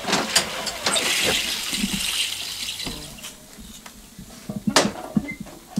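Barquillo wafer batter hissing on a hot iron, loudest in the first couple of seconds and then dying down. Several sharp clicks and knocks from the tools, the loudest near the end.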